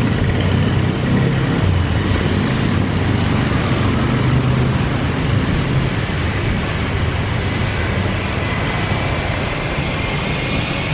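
Steady rumble of a taxiing Airbus A321's jet engines, with a thin whine that rises slightly in pitch near the end.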